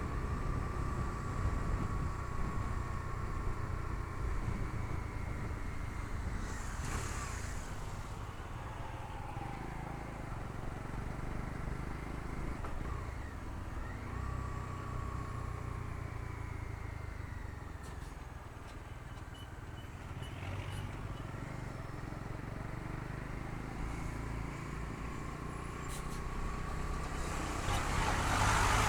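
Bajaj Dominar 250's single-cylinder engine running on the road, its pitch rising and falling with throttle and gear changes over low wind rumble, and climbing louder near the end.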